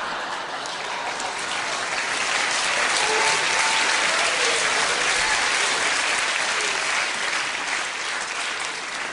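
Audience applauding, a dense even clapping that eases off near the end.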